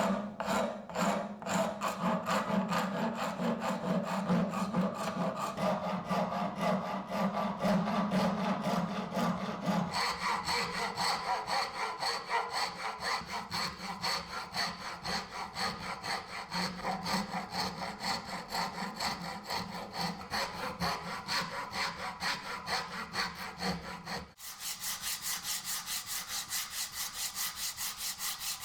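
Hand sawing or rasping of a purpleheart wood knife handle: quick, even back-and-forth strokes. The tone of the strokes changes abruptly twice, about ten seconds in and again near the end.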